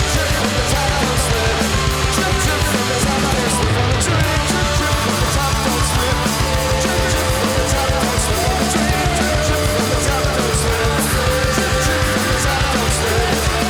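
Live psychedelic rock band playing loudly and without a break: distorted electric guitars over bass and drums, with frequent cymbal hits.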